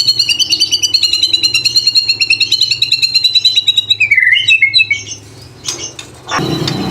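White-rumped shama (murai batu) singing a fast, evenly pulsed run of high repeated notes that slowly falls in pitch, the rapid 'tembakan' run prized by bird keepers; about four seconds in it breaks into a lower dipping phrase, and a harsh noisy burst comes in near the end.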